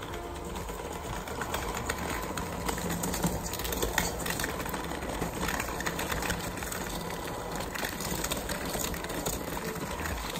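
Handheld electric mixer running, its beaters creaming butter and sugar for cookie dough in a stainless steel bowl, with frequent sharp clicks as the beaters knock against the bowl.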